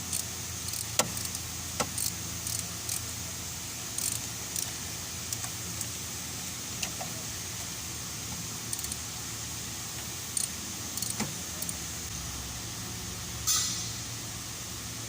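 Scattered light metallic clicks and clinks of hand tools at work on the engine, over a steady low hum, with a brief louder hissing rattle near the end.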